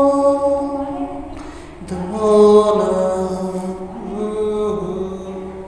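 A voice singing a song in long held notes, with a new phrase starting about two seconds in and the singing growing quieter toward the end.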